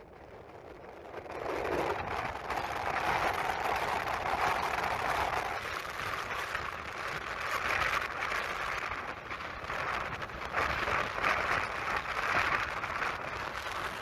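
Storm wind and choppy waves breaking against a rocky shore: a dense, steady rushing noise that builds over the first two seconds, with small surges as the waves come in.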